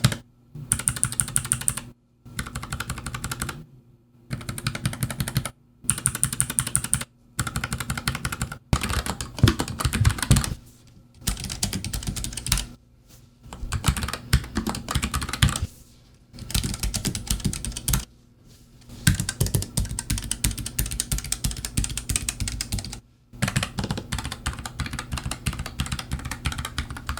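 Typing on a NuPhy Air75 low-profile mechanical keyboard with hot-swapped Gateron low-profile red (linear), blue (clicky) and brown (tactile) switches, tried in turn. Rapid key clicks come in about a dozen short runs with brief pauses between them.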